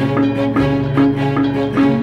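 Balinese gamelan music: fast, evenly spaced strikes on ringing metallophones over sustained low tones.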